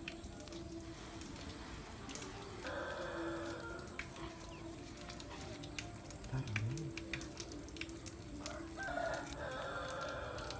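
A rooster crowing twice, once about three seconds in and again near the end, each crow lasting over a second, with faint small clicks of hands handling a rubber band and string.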